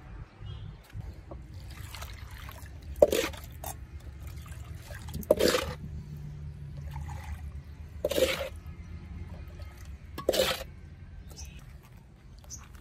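Thin cement slurry splashing as it is poured from a pot into a baluster mould, in four short pours two to three seconds apart.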